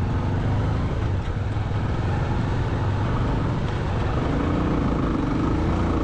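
Motorcycle engine running at steady, even revs.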